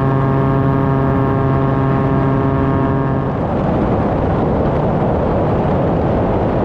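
Cessna 185 floatplane's six-cylinder engine and propeller droning steadily in the cockpit during the climb after take-off. About three seconds in, the steady pitched hum gives way to an even, rougher rush of noise at the same loudness.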